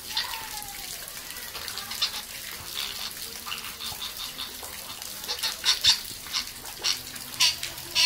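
A caged parrot giving short, sharp squawks: a falling one just after the start, another about two seconds in, then a quick run of them from about five seconds in.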